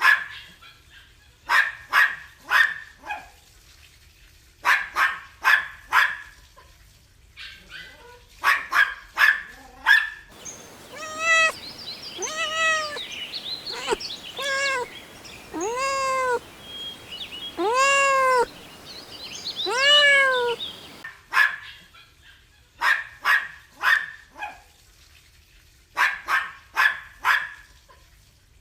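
Puppies yapping in quick clusters of three or four short, sharp barks. About ten seconds in, kittens take over with a run of rising-and-falling meows, and near the end the puppies yap again.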